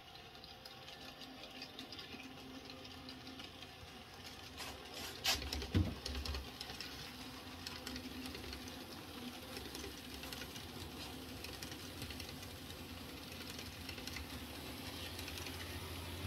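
N-scale model passenger train running on the layout track: a small electric motor whirring with steady light clicking of wheels over rail joints, growing a little louder as it nears. A couple of sharper clicks come about five to six seconds in.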